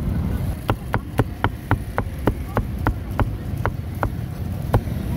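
Cleaver chopping grilled pork on a chopping block: a quick, even run of sharp knocks, about three to four a second, slowing a little near the end, over a low steady rumble.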